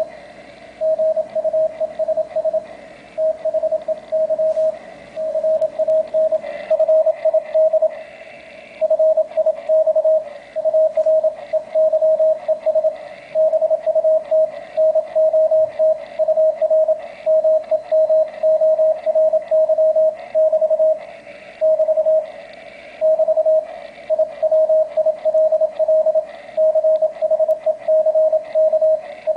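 Morse code (CW) received on an Icom IC-703 transceiver and played through a homebrew acoustic-resonance speaker made from a 5¼-inch plastic tumbler. It is a keyed tone of one steady pitch, sitting at the cup's 650 Hz resonance, sounding in quick dits and dahs over a faint hiss of band noise.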